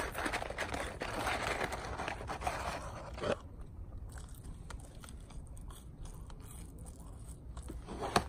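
A man chewing French fries close to the microphone, loudest for the first three seconds or so and then softer, with a sharp click near the end.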